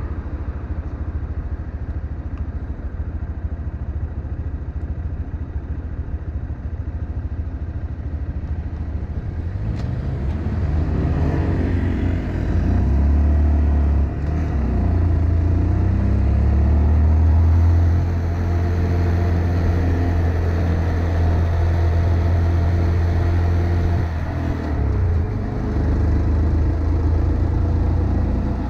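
Honda Monkey 125's single-cylinder four-stroke engine idling at a stop, then pulling away about ten seconds in and accelerating through the gears. Its pitch climbs, drops at two gear changes, and climbs again as the bike gathers speed.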